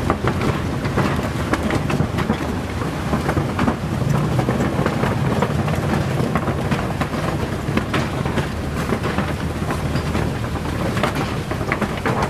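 A vehicle's engine running as it drives slowly over a wooden-plank suspension bridge, with a steady clatter of knocks from the deck planks under the tyres.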